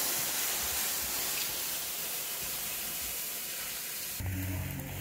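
A leafy tree limb dragged through brush on a rope makes a steady rushing, hissing rustle of leaves. A little past four seconds it gives way suddenly to a low steady hum.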